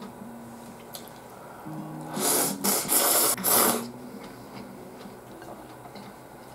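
A person slurping soy-sauce tonkotsu ramen noodles in several quick, loud pulls about two to four seconds in, over soft background music.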